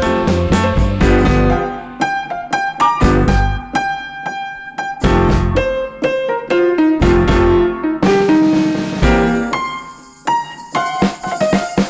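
Background music led by a piano playing a run of short, distinct notes, with lower notes in some passages and brief lulls.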